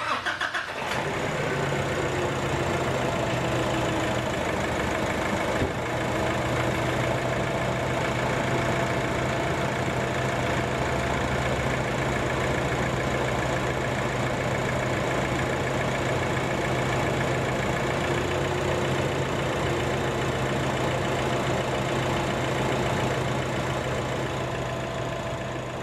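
Nissan Navara D23's YD25 2.5-litre four-cylinder turbodiesel idling steadily, the sound cutting in suddenly at the start.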